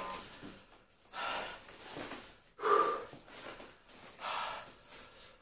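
A man breathing hard and gasping, about five heavy breaths in a row, the loudest about two and a half seconds in with a bit of voice in it. It is his reaction to the burn of a just-eaten Carolina Reaper chilli.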